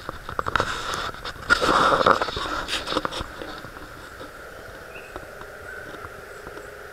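Rustling and clicking handling noise, loudest about two seconds in and dying away after about three seconds. It is followed by a steady quiet outdoor background with a faint short high chirp.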